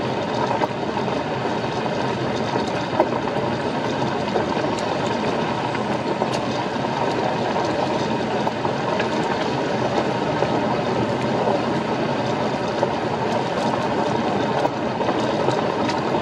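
Steady road noise of a car's tyres rolling slowly over a washboarded gravel road, heard inside the cabin, with scattered sharp clicks of stones.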